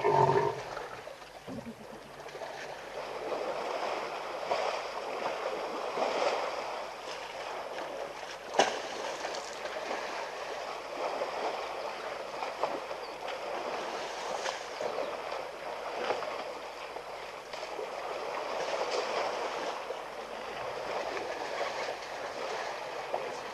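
Mud and water sloshing and splashing as elephants wallow in a shallow waterhole, a continuous uneven wash of sound. A brief pitched call right at the start and a single sharp click about eight seconds in.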